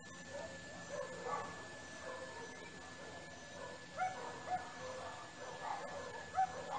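Faint, short animal calls such as distant yelps or barks, repeated several times and loudest about four seconds in and again near the end.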